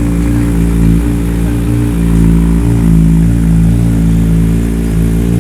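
Motorcycle engine idling steadily, loud and close.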